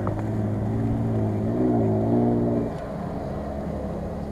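Mitsubishi Pajero Sport's engine running as the SUV drives over grass, revving up and back down once about halfway through before easing off.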